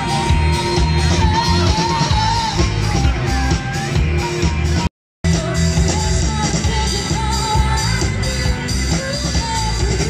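Live rock band playing through a PA system, with a singer's voice over heavy bass and guitar. The sound cuts out for a moment about five seconds in.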